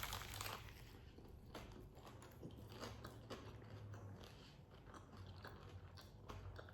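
A person biting into a bacon cheeseburger and chewing it, with the crunch of the bacon. A denser crunch comes right at the start, followed by many small, irregular crunching clicks as the mouthful is chewed.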